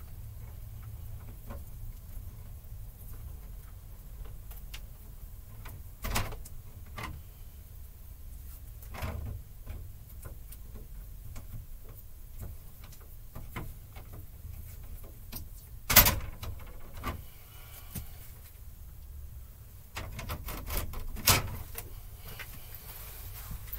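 Scattered knocks, clicks and handling sounds of electrical wire being taped to a fish tape and worked into a conduit, over a steady low hum. One sharp knock comes about two-thirds of the way through, with smaller ones around a quarter of the way in and near the end.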